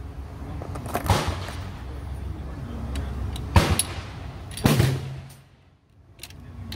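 Rifle shots on an outdoor range: three sharp reports, about a second in, about three and a half seconds in, and just before five seconds in, each trailing off in a short echo.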